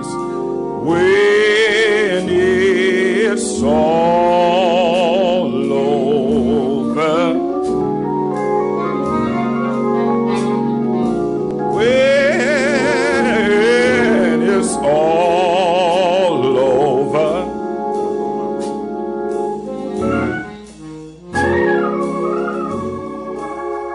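Gospel singing with a wide vibrato over sustained organ chords, with light regular percussion taps through the second half. The voice and music thin out briefly about 20 seconds in.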